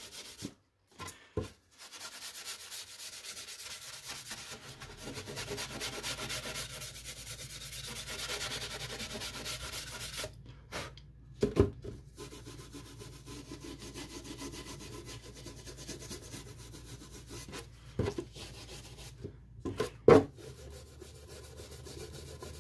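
00-grade steel wool rubbed by hand over a painted model-aircraft cowl: a steady scratchy rubbing that stops briefly a few times, with a few short knocks. It is taking down the ridge of paint left along the edge of the masking tape on a panel line.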